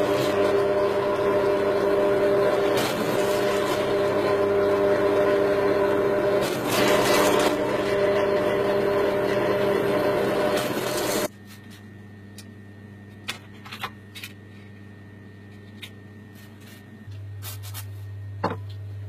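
Drill press running a step drill bit through square steel tubing: a steady whine with several fixed tones while the bit cuts. About eleven seconds in it cuts off abruptly, leaving a low hum and a few small clicks.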